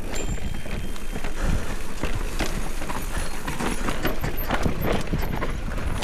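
Specialized Turbo Levo electric mountain bike descending a rough dirt trail: a steady low rumble of tyres and wind, with frequent irregular knocks and rattles as the bike chatters over rocks and roots.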